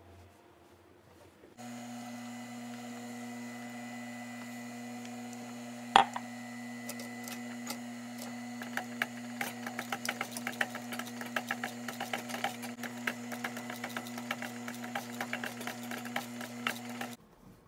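JUKI industrial sewing machine: its motor starts humming steadily, and a single sharp clack comes about six seconds in. From about seven seconds in, the needle stitches through layered leather with rapid, uneven ticking, until the motor cuts off suddenly near the end.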